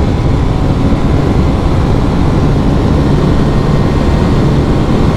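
Bajaj Pulsar NS200's single-cylinder engine running steadily near 9,000 rpm in sixth gear, still slowly gaining speed at about 120 km/h near the bike's top speed, with wind rushing over the microphone.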